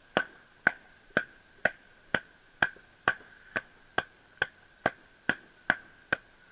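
A futon draped over a metal rail being beaten with a wire coat hanger: sharp, evenly paced slaps at about two a second.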